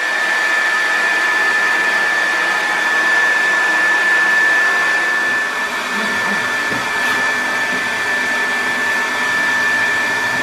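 Handheld hair dryer running steadily at close range, drying fresh plaster on a wall: a rush of air with a steady high whine running through it.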